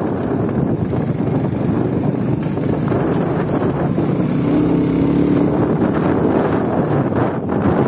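A 70cc motorcycle's small single-cylinder engine running steadily at riding speed on a rough dirt road, with wind rushing over the microphone.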